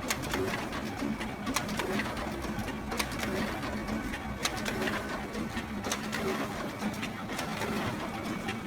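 Photocopier running: a steady mechanical hum with sharp clicks about once a second as it cycles.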